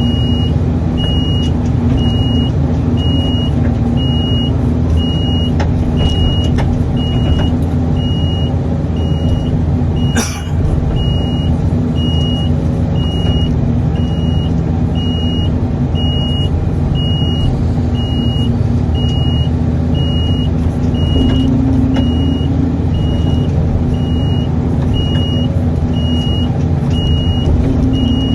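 Excavator's diesel engine running steadily under a travel alarm giving a long run of evenly spaced high beeps, about three every two seconds. A single sharp click about ten seconds in.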